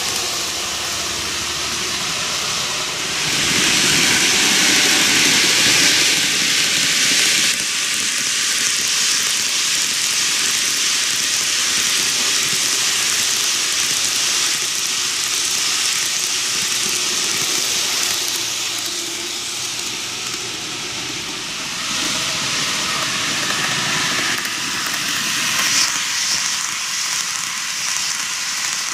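TOMIX N-gauge JR 185-0 series model electric train, 15 cars, running on curved track: a steady rolling hiss of wheels on rails, louder for a few seconds near the start.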